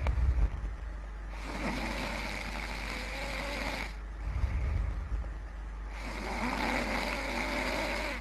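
A person snoring heavily in a steady rhythm of about one breath every four seconds: a loud, low snore twice, each followed by a long, noisy breath.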